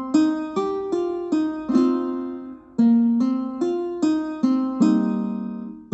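A mobile ringtone melody of single struck, keyboard-like notes, each dying away, about two a second, in two phrases with a short pause between them.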